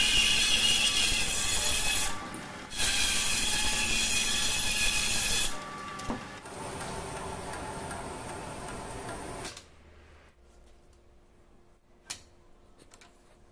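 Band saw cutting through a log of very hard mastic tree wood, with a brief dip about two seconds in. At about five and a half seconds the cut ends and the saw runs on more quietly. Near ten seconds in it drops to a low level, and there is one sharp click near the end.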